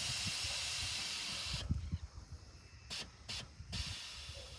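Air suspension of a lowered VW Saveiro dumping air to lower the truck. A strong hiss fades slightly and cuts off sharply under two seconds in, followed by three short puffs of released air.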